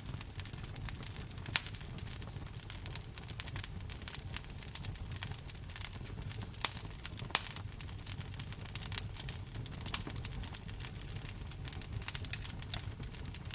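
Wood fire crackling steadily, with dense small snaps over a low rumble and a few louder pops scattered through.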